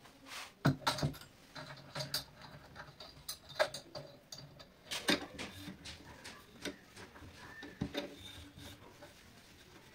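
Metal scissor-arm stand handled and clamped onto a wooden desk: irregular clicks, knocks and rubbing from the arm joints and the clamp against the wood, the loudest knocks about a second in and again around the middle.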